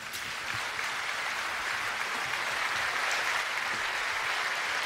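Concert audience applauding: dense clapping that breaks out all at once and holds steady.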